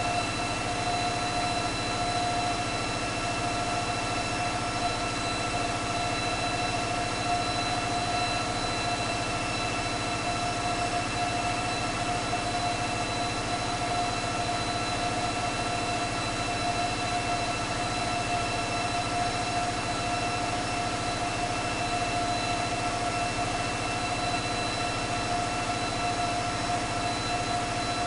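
Caterpillar 3516B V16 diesel engine running steadily on an engine dyno, a low rumble with a steady high whine over it.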